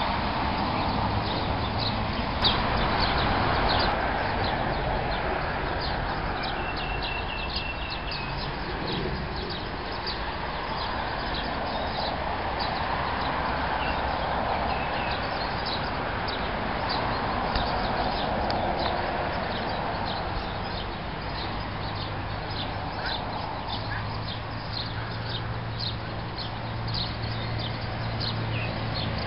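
Outdoor ambience: a steady rushing background with many short, high chirps or ticks throughout, and one brief held high note about seven seconds in.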